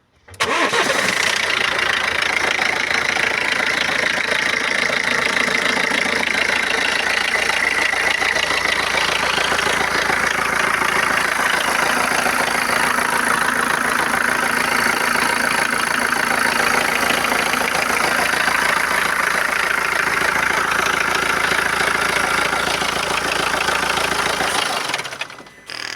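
BMW 114d's four-cylinder diesel engine starting and then idling steadily. Its sound drops away about a second before the end.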